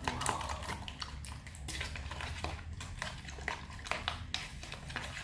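A metal spoon beating an egg mixture in a plastic bowl: quick, irregular clicks and scrapes of the spoon against the bowl, over a low steady hum.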